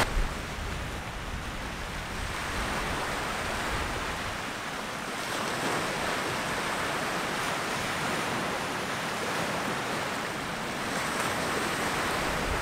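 Small waves washing onto a beach: a steady hiss of surf that swells and eases slowly, with a little wind.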